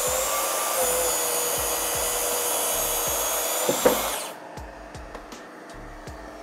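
Makita cordless track saw cutting through a laminated plywood blank along its guide rail, with the dust-extraction hose attached: a loud, steady, high whine of the blade in the cut. There is a short sharp crack near four seconds in, after which the sound drops off to a quieter steady hum.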